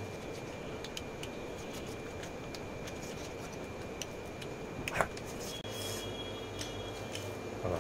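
Eating by hand: chewing, and fingers mixing rice and pork on a steel plate, heard as soft clicks and rubbing over a steady hiss, with one sharper sound about five seconds in.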